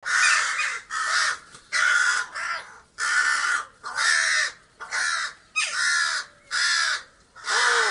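A crow cawing over and over: about nine harsh, hoarse caws, roughly one a second.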